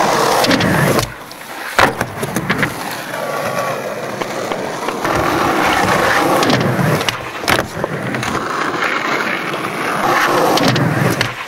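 Skateboard wheels rolling over rough concrete, a continuous gritty rumble, with a few sharp clacks of board against ground about two, five and seven seconds in.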